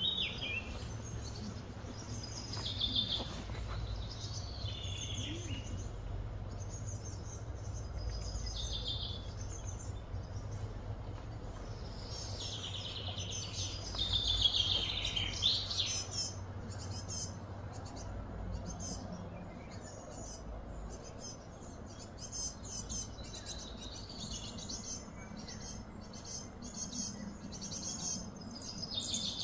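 Outdoor ambience of birds chirping and calling, with a louder run of sweeping, falling calls about halfway through and quick high chirps later on, over a steady low rumble.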